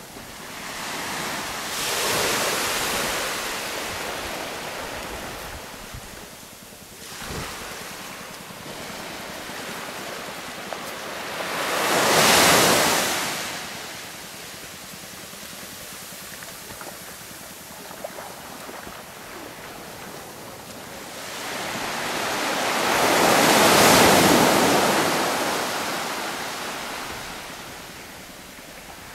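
Ocean surf on a beach: waves swell and break three times, about 2 seconds in, around 12 seconds and loudest around 24 seconds, with a steady hiss of sea in between.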